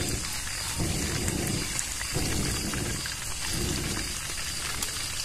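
A man blowing on a small wood cooking fire in four strong puffs, about one every second and a half, over a steady sizzle of fish frying in oil. A few faint crackles come from the fire.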